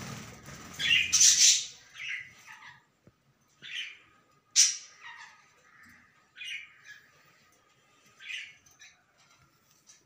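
Budgerigar giving short, harsh squawks and chirps, about eight in all at irregular intervals, the loudest about a second in and about four and a half seconds in.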